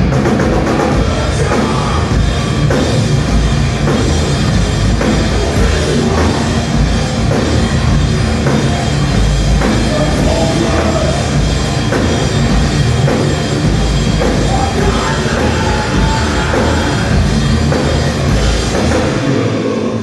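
A thrash metal band playing live at full volume: distorted electric guitars, bass and a pounding drum kit.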